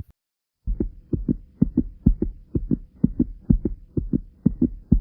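Human heartbeat heard close up, a fast steady run of double thumps (lub-dub) at about two beats a second. It starts under a second in, after a short click and a moment of silence.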